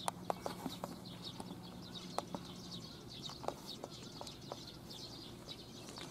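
Small birds chirping in the background, with irregular light taps of footsteps on a paved path. A low steady hum fades out about three seconds in.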